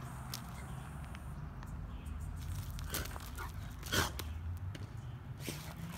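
A Rottweiler making a few short vocal sounds while playing, the loudest a sharp one about four seconds in. Scattered light clicks and a low steady hum lie underneath.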